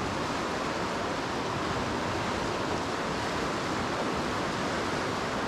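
Steady rushing of a fast-flowing river running high with rain.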